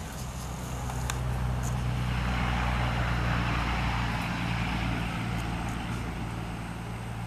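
A motor vehicle passing by: a low engine hum and tyre noise that swell to a peak about three seconds in, then slowly fade.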